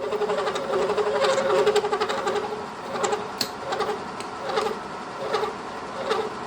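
Horizontal milling machine cutting a key slot into a valve ball, a rapid, rhythmic mechanical buzz from the cutter teeth with stronger pulses about once a second. It is somewhat louder in the first couple of seconds.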